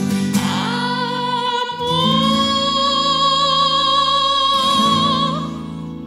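A woman's very high soprano singing a wordless vocalise over sustained accompaniment chords: the voice slides up about half a second in and holds one long high note, wavering with vibrato as it ends near the end, after which the music grows quieter.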